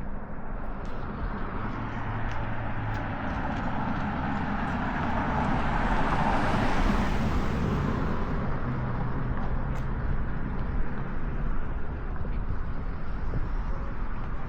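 A road vehicle passing by: its tyre and engine noise swells to a peak about halfway through, then fades away.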